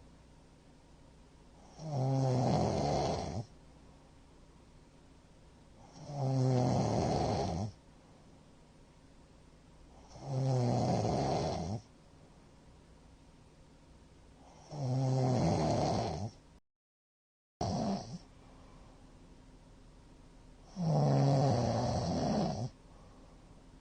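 A man snoring loudly in deep sleep: five heavy, rattling snores, each about a second and a half long, coming roughly every four seconds, with quiet breathing between them. The sleeper puts the loud snoring partly down to heavy drinking. The sound cuts out completely for about a second roughly two-thirds of the way through.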